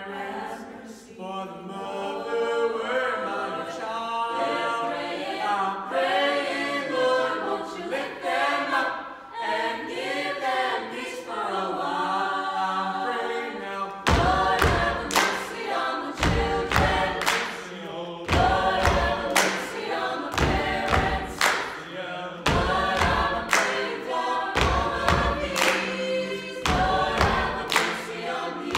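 Mixed-voice vocal ensemble singing a gospel-style choral piece in harmony. About halfway through, rhythmic hand claps join the singing, roughly one to two a second.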